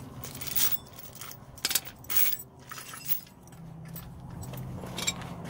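Hand tools and small steel parts clinking and tapping against each other, a handful of sharp metallic clinks, while pins are worked out of a truck's front axle assembly. About three and a half seconds in, a steady low hum comes up underneath.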